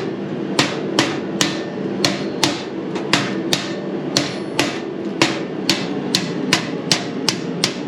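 A hammer striking the go-kart's steel frame upright over and over, about two to three sharp, ringing blows a second. The steady strikes are testing whether the cut through the weld has freed the piece and knocking it loose.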